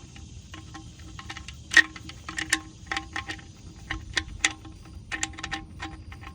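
Irregular metallic clicks and clinks of hand tools and parts being handled during an oil change, with one sharper clink a little under two seconds in.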